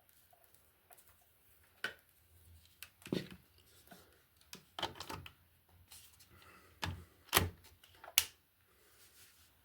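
Irregular clicks, knocks and rustling of things being handled, the loudest being two sharp clicks near the end.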